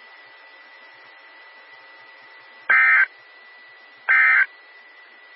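Emergency Alert System end-of-message data bursts from a NOAA Weather Radio broadcast: two short, loud bursts about a second and a half apart, which signal the end of the alert. They sit over steady radio hiss with a faint steady tone.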